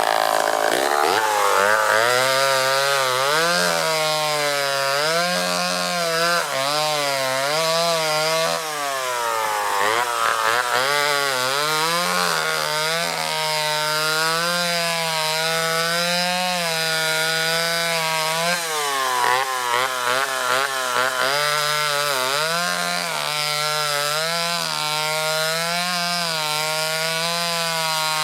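Homelite Super XL Automatic two-stroke chainsaw revving up from idle about a second in, then running at high revs through a log. Its pitch keeps sagging and recovering as the chain bites into the wood, with a deeper drop a little before the halfway point.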